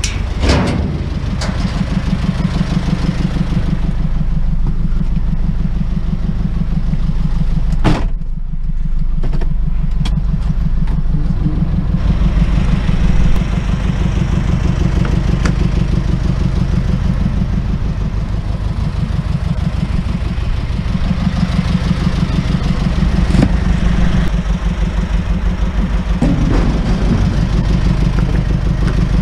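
Truck engine running steadily, with a few knocks and clatters.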